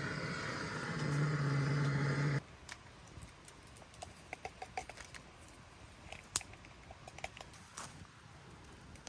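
A small motor-driven appliance running with a steady hum, switched off suddenly about two and a half seconds in, followed by scattered light clicks and taps.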